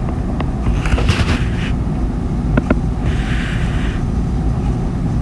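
Stylus tapping and scratching across a tablet's glass screen as a line is drawn: a few sharp ticks and two short scratchy strokes, about a second in and again about three seconds in, over a steady low background rumble.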